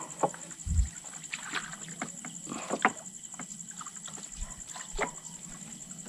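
Water splashing and sloshing in a shallow river as a fishing net is worked, in many short sharp splashes and knocks with a few low thuds. Insects chirr steadily and high behind it.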